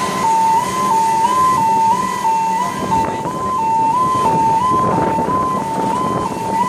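Two-tone warning alarm of a shipyard gantry crane, switching back and forth between a higher and a lower pitch a little faster than once a second, over a steady low machinery hum.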